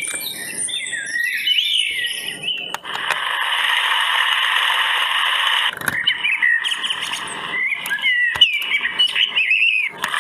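Recorded sound effects from an Usborne Garden Sounds board book, set off one after another by pressing its buttons. First come bird chirps, then a click and about three seconds of steady pattering rain, then another click and a baby bird tweeting with quick rising and falling chirps.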